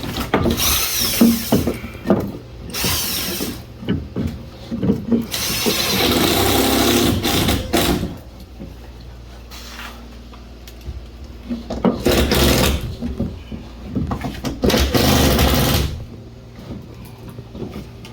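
Power drill driving screws into timber blocking behind a drywall ceiling sheet, running in about five bursts of one to two and a half seconds each, with knocks and handling noise in between.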